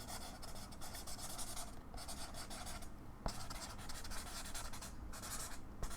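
Writing notes on paper by hand: continuous scratchy strokes, broken by a few short pauses.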